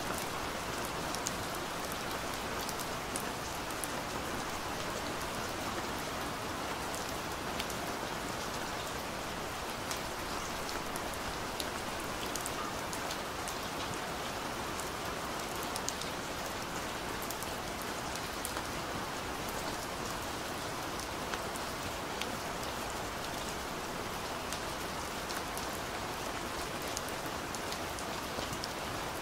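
Steady, even hiss-like background noise with faint scattered ticks, unchanging throughout.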